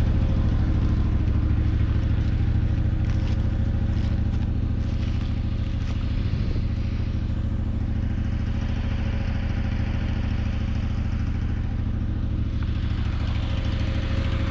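Cushman Turf Truckster engine idling steadily, with a few faint light clatters in the first half.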